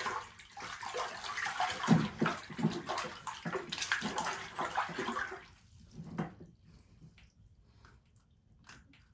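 Water splashing and sloshing in a hole in the ice as a small hooked fish thrashes at the surface and is lifted out by hand. The splashing stops about five and a half seconds in, leaving a few faint drips and clicks.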